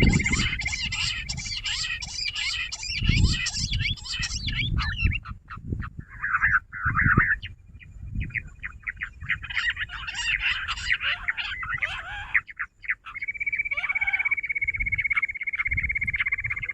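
Jungle bush quail calling: bursts of rapid, high chattering chirps, with a steady high trill taking over near the end. Low thumps sound underneath.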